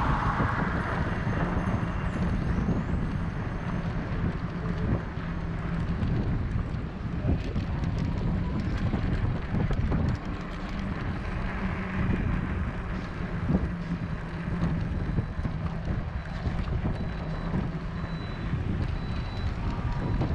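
Wind buffeting the microphone during a bicycle ride: a steady low rumble with a few light clicks and knocks.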